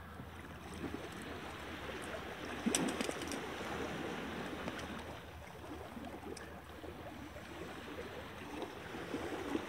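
Small waves lapping against a rocky shoreline, with a few brief clicks and rustles of handling a little under three seconds in.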